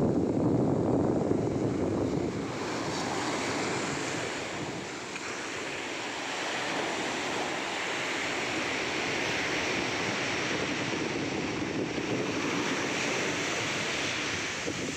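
Surf breaking and washing up a sandy beach, a steady rushing wash of waves, louder for the first couple of seconds. Wind buffets the microphone.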